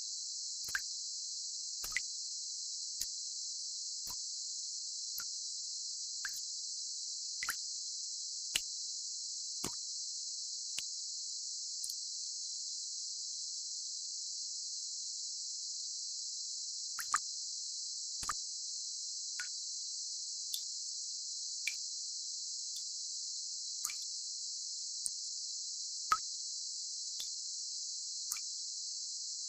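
Tinnitus-masking sound: a steady, high-pitched band of hiss with short clicks about once a second, which pause for several seconds midway.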